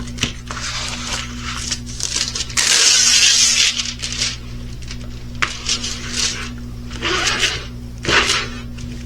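Rustling and crinkling of a diamond painting kit's plastic packaging and canvas being handled, in several bursts, the loudest a little under three seconds in, over a steady low hum.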